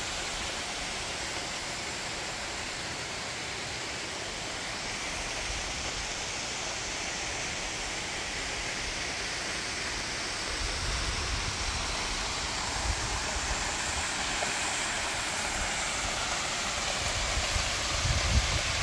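Steady rush of a waterfall spilling down a rock bluff into a creek pool, with irregular low rumbles on the microphone in the second half.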